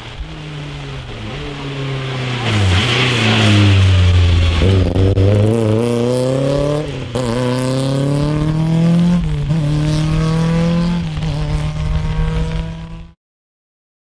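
Rally car engine revving hard through the gears on a wet tarmac stage, the revs climbing and dropping at each upshift. The hiss of tyres throwing up spray is loudest as the car passes a few seconds in. The sound cuts off abruptly near the end.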